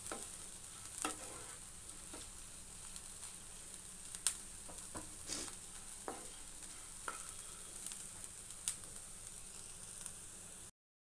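Mashed potato and chana dal masala frying with a light sizzle in a nonstick pan. A wooden spatula scrapes and knocks against the pan at irregular intervals as it is stirred. The sound drops out abruptly near the end.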